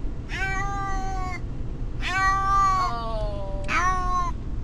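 Domestic cat meowing in distress on the way to the vet: three drawn-out meows, the middle one long and sinking in pitch at its end, over a steady low rumble.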